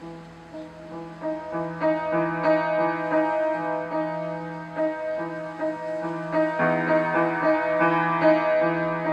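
Upright piano played by hand: a steady run of notes over a low held tone, picking up in strength just after the start.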